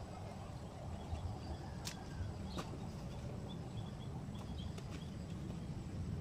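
Outdoor ambience: a steady low rumble with faint bird chirps in the middle and a few sharp clicks.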